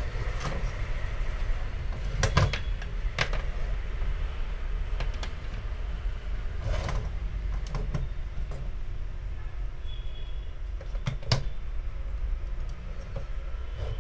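Scattered clicks and light knocks of a charger circuit board and its small cooling fan being picked up and set down on a workbench, over a steady low background rumble.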